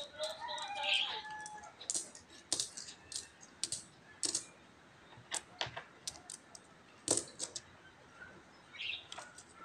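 Philippine peso coins clicking and clinking against each other as they are counted by hand and stacked on a wooden table, in irregular clusters of sharp clicks.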